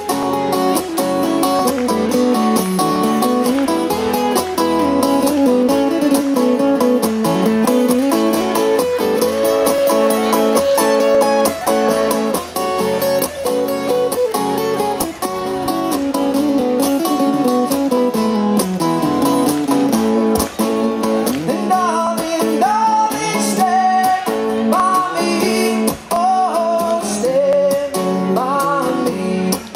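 Two acoustic guitars played together as a live duo, strummed and picked. About two-thirds of the way through, a man's singing voice comes in over the guitars.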